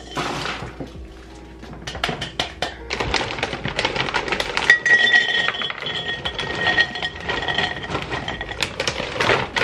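Hard dry dog biscuits pouring from a bag into a ceramic canister: a dense, rapid clinking and rattling as the treats hit the ceramic and one another, starting a couple of seconds in and running on almost to the end.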